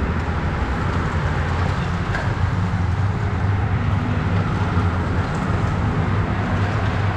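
A field of road racing bikes rushing past at racing speed, a steady noisy rush with a low steady hum underneath.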